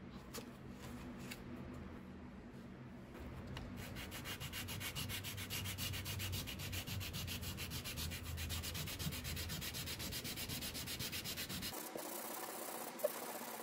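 Small metal pin plate rubbed rapidly back and forth on 600-grit wet-or-dry sandpaper laid flat on a bench, sanding off corrosion. The even scratching strokes start a few seconds in and stop suddenly near the end, followed by a single click.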